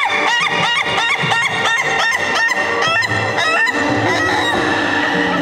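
Ayam ketawa (laughing chicken) rooster crowing its laughing call: a fast run of short rising-and-falling notes, about three a second, that stops about three and a half seconds in.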